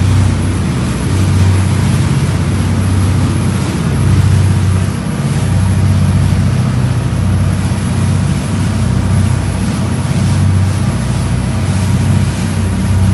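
A ship's engine running steadily: a loud, deep hum with a hiss over it.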